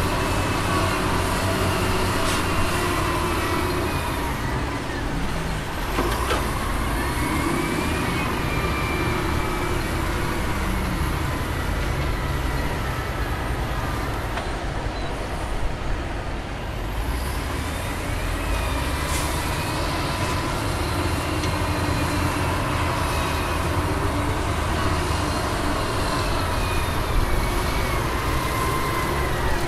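Heavy diesel engine of a dump truck running steadily, its pitch rising and falling as it revs up and down under load.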